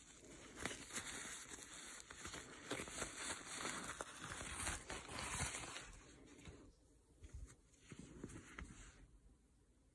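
Soft rustling and rubbing handling noise of hands, fabric and the blanket close to the microphone, with small clicks. It is busiest for about the first six seconds, then dies down to faint rubbing.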